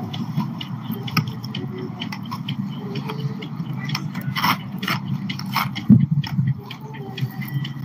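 Skate wheels rolling over outdoor pavement: a steady low rumble with irregular clicks and scrapes, and a louder thump about six seconds in.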